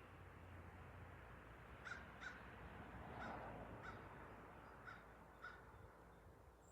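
Faint bird calls: six short calls in three pairs, about a second apart, over a quiet outdoor hiss.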